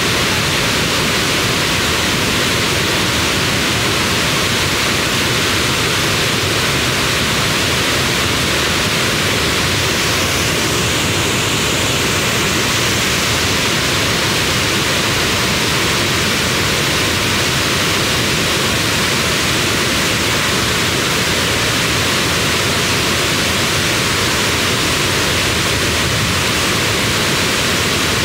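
Muddy floodwater of a stream in spate rushing over a small weir and culvert: a loud, steady rushing of water.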